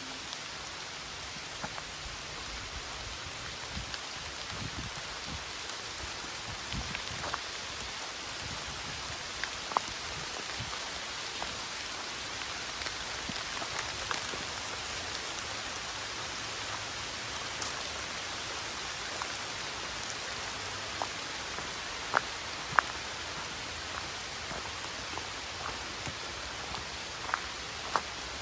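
Steady rain shower falling through trees, an even hiss, with scattered sharp taps of drops, a few louder ones about 10 and 22 seconds in.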